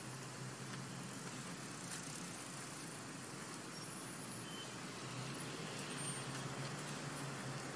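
Steady outdoor background hiss with a low hum that fades in and out, like distant road traffic.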